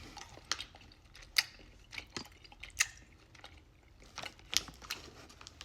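A person chewing a sour gummy candy, with scattered wet mouth clicks and smacks at an uneven pace.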